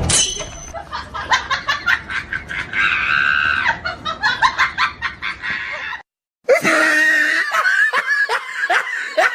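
A person laughing hard in rapid, high-pitched bursts, close to screaming. Cut off briefly about six seconds in, then more laughing, each burst falling in pitch.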